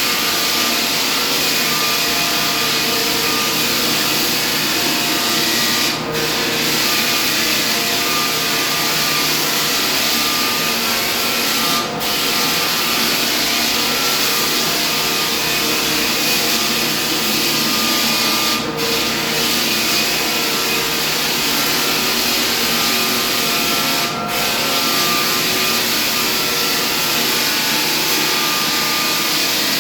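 Floor sanding machine running steadily on hardwood, with a brief dip in level about every six seconds.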